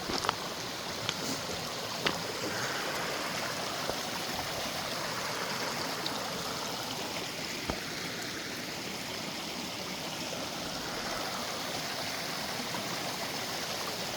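Mountain creek rushing steadily, with a few sharp clicks, at the start and once later on.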